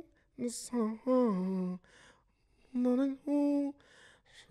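A man singing short phrases of held notes close to a microphone, imitating another singer's voice. One note glides down about a second in, and two held notes come near three seconds in.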